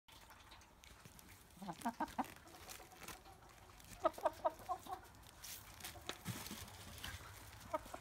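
Hen clucking in short runs of quick notes: a burst about a second and a half in, a longer run around four seconds in, and a brief pair near the end.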